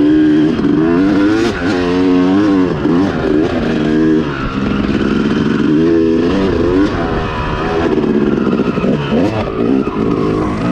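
Yamaha YZ250 two-stroke motocross engine heard from on the bike, revving up and falling back every second or two as the throttle is opened and shut around the track.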